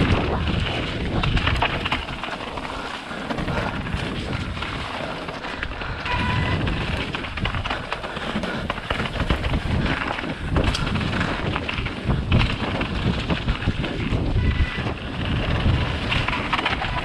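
Wind buffeting the microphone over the rumble and rattle of a mountain bike riding down a rough trail.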